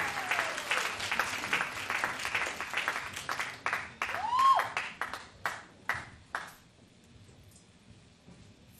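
Audience applause dying away, thinning into a few scattered claps that stop about two-thirds of the way through. About halfway in, one person in the audience gives a short rising-and-falling call.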